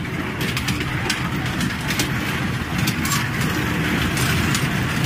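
Kiddie-ride train running round its track: a steady low rumble with a few faint clicks.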